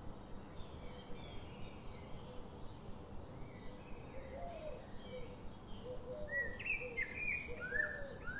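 Birds chirping and calling over a steady background hiss, the short notes becoming louder and more frequent in the second half.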